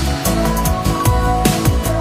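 Background music: electronic track with a steady beat and deep bass that slides down in pitch.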